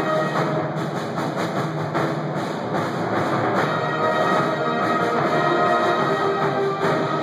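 Live concert band of woodwinds, brass and percussion playing sustained chords, with struck percussion hits among them.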